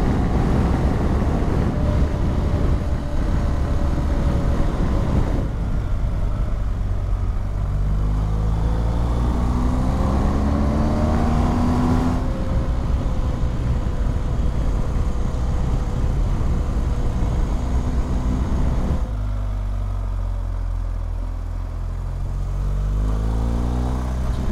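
BMW R1250GS boxer-twin engine running under way, heard with heavy wind rush over the microphone. About eight seconds in the engine note climbs as the bike accelerates. Around nineteen seconds it drops and quietens for a few seconds, then picks up again near the end.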